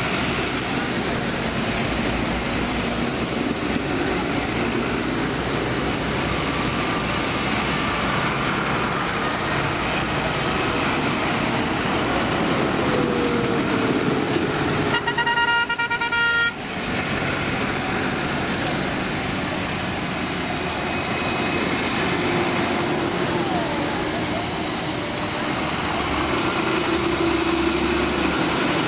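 A line of modern New Holland, Claas and John Deere tractors driving past close by, their diesel engines running steadily. About halfway through, a horn sounds once for about a second and a half.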